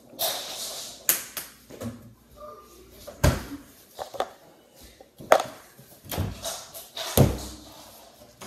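Household handling sounds: a fridge door shutting and a string of sharp knocks and thumps as things are set down and moved on a kitchen counter, about one a second, the loudest about five seconds in.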